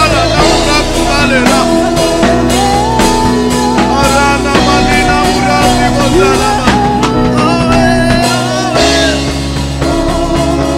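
Live gospel praise-and-worship band music: drums and a steady bass under singers' voices.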